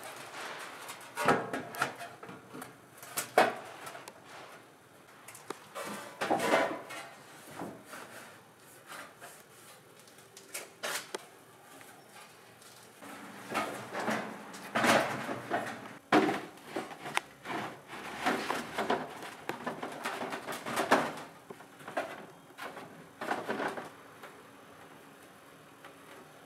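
Corrugated roofing sheets and a ridge cap being handled and laid onto a wooden roof: irregular knocks, scrapes and rattles of the sheets against the boards, some with a brief ring.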